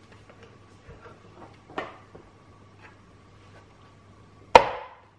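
Lids being pressed onto small plastic food containers: light handling clicks, a clearer click about two seconds in, and one sharp plastic snap about four and a half seconds in.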